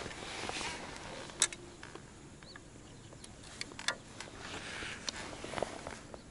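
Handling noises as a small roach is swung in on the fishing line and unhooked by hand: soft rustling at first, then a few scattered sharp clicks and taps.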